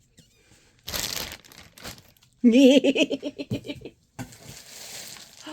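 Packaging crinkling and rustling as items are lifted out of a parcel box: a burst about a second in, then steadier rustling near the end. A short wavering vocal sound, without words, comes in the middle.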